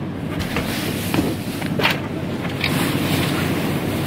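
Wind rumbling on the microphone over the wash of surf, with a few light knocks and rustles as fishing gear and bags are handled by the car.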